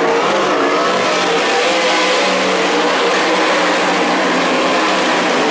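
Several winged 410 sprint cars' V8 engines at racing speed, loud and steady, their overlapping engine notes wavering up and down.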